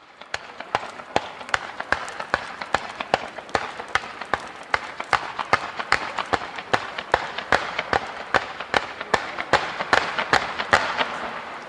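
Fireworks going off in a fast, even volley, about two and a half sharp reports a second, with fans of comets fired from the ground. A crackling hiss runs underneath and grows louder toward the end.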